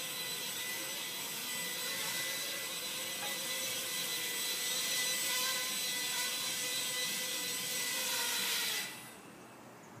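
Walkera Ladybird mini quadcopter's four small coreless motors and propellers whining steadily in flight, then cutting off suddenly near the end as it settles on the floor.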